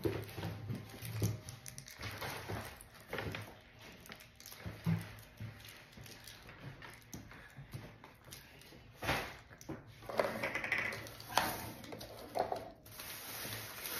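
Small toy packaging and plastic pieces being opened and handled by hand: scattered crinkles and clicks, with a few louder rustles about nine to thirteen seconds in.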